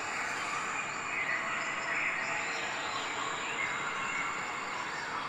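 Steady background hiss with a few faint, high, chirp-like calls over it.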